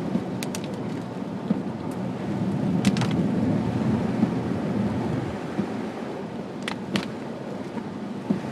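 Steady road and engine noise inside a car driving on a lightly snow-covered road, with a few brief sharp ticks scattered through it.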